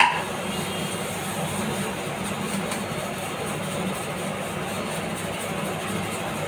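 A steady whooshing drone with a low hum underneath, with one sharp metallic clink right at the start.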